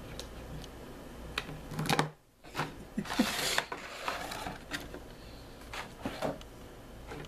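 Small plastic action figures and their packaging being handled: scattered light plastic clicks and taps, with a short crinkling rustle about three seconds in.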